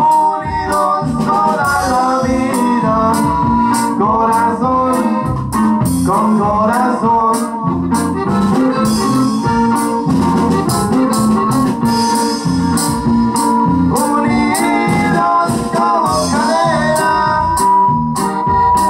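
Live norteño band playing: a sustained, reedy accordion melody with quick runs over bass and a steady drum beat.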